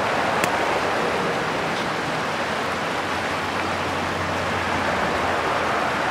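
Steady rush of a shallow river flowing over rocks.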